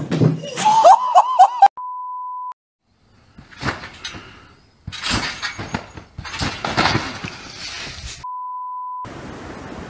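A person falling off a small plastic chair with a crash and a high, wavering cry, cut off by a steady censor beep. Loud, noisy home-video sound of trampoline bouncing follows, and a second identical beep comes near the end.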